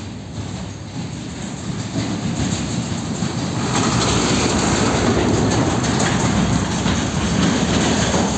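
UD Trucks (Nissan Diesel) tractor unit hauling a shipping-container trailer drives past close by: diesel engine running with tyre and trailer noise, getting louder about four seconds in as it passes.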